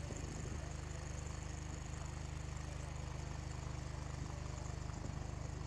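An engine running steadily at idle: a low, even hum with a fast regular pulse.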